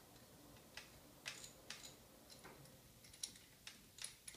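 Light metallic clicks as a masonry bit is fitted into a power drill's chuck: about ten faint, sharp ticks at irregular intervals.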